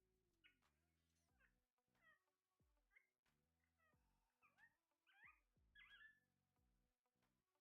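Faint parrot calls: a run of short chirps and squawks that glide up and down in pitch, louder toward the end.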